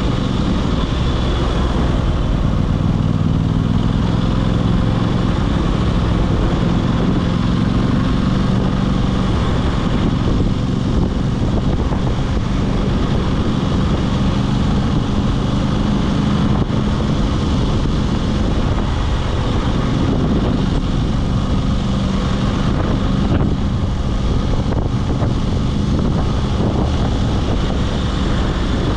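Aprilia RS 660's parallel-twin engine running at a steady cruising pitch while riding, with wind rushing over the microphone. The engine note rises and falls a little about two-thirds of the way through.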